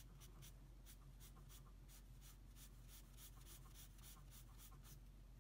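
Pencil shading on drawing paper: a faint run of quick, short scratchy strokes, about three or four a second, that stop shortly before the end.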